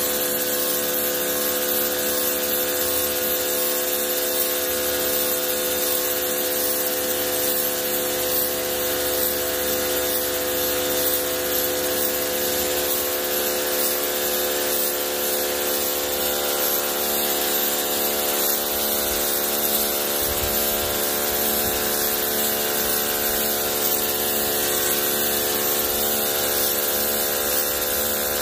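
Ryobi electric pressure washer running steadily, its motor and pump giving a constant hum under the hiss of the high-pressure jet blasting dirt off a concrete floor.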